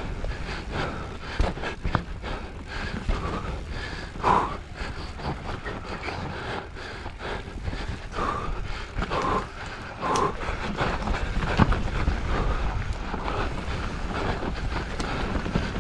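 Mountain bike on an enduro descent: a steady rumble of wind and tyres on dirt, with the bike clattering and knocking over rough ground. The rider breathes hard several times.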